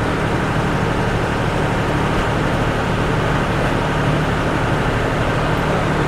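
GEA feed mixer running steadily, a constant low machine hum, as it blends chopped maize silage with cattle feed and maize bran.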